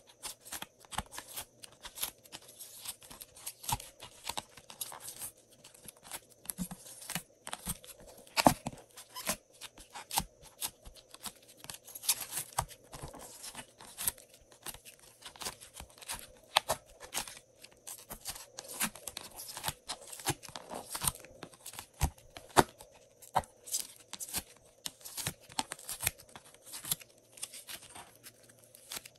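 Fingernails scraping and peeling crumbly pink clay off a clear ridged plastic container. It makes a dense, irregular run of crackling, crunching and tearing clicks, with one sharper crack about eight seconds in.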